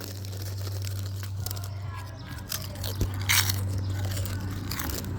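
Quavers crisps being crunched and chewed in irregular bites, over a steady low hum.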